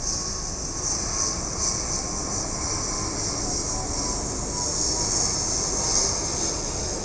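ATR 72-500 twin-turboprop airliner passing low overhead on approach: steady engine and propeller noise with a strong high hiss, growing louder to a peak about six seconds in.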